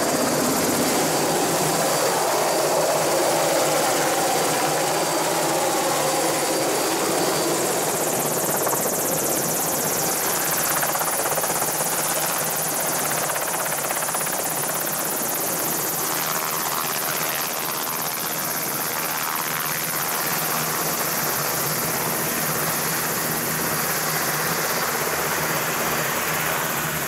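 Enstrom 480 turbine helicopter running on the ground: a steady, loud noise of engine and rotor, with a thin high whine over it.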